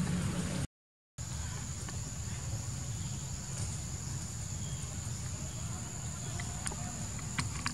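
Steady high-pitched insect drone over a low rumble, cut off briefly about a second in, with a few faint ticks near the end.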